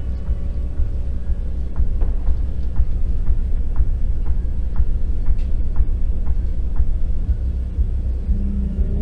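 Dark film-score drone: a loud, steady low rumble, with a run of soft, evenly spaced ticks, about two to three a second, through the middle.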